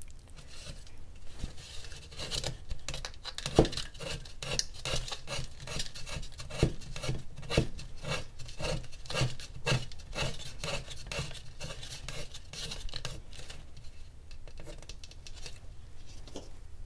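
Calf leather lace being pulled through holes in a dried gourd's rim and tucked into a braid by hand, making a run of quick rubbing, rasping strokes that are densest in the middle and thin out near the end.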